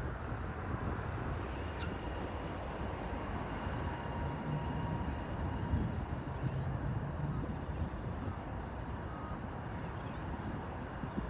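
HCMT electric suburban train moving slowly out of a stabling siding: a steady low rumble with a faint steady electric whine.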